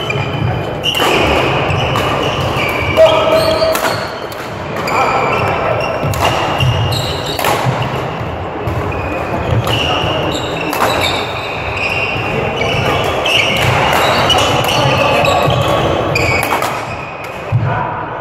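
Badminton rackets striking shuttlecocks and court shoes squeaking on a sports hall floor, from several games in play, echoing in a large hall with voices in the background.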